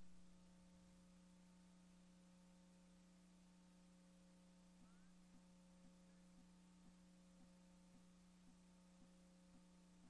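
Near silence: a faint steady electrical hum, joined about halfway through by faint ticks about twice a second.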